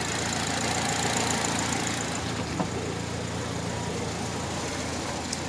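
2007 Chevy Cobalt Sport's four-cylinder engine idling steadily and sounding healthy.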